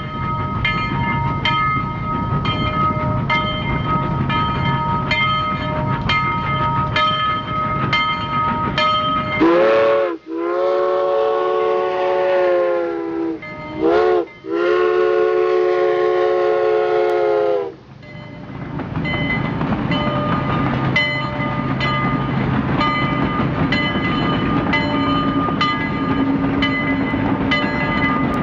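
Canadian Pacific 2317, a 1923 Montreal Locomotive Works steam locomotive, sounds its whistle in four loud blasts a third of the way in: a short toot, a long blast of about three seconds, another short toot and a second long blast. Each blast is a chord of several tones that bends in pitch as it opens and closes. Before and after the whistle, the engine's running sound goes on with regular clicks about twice a second.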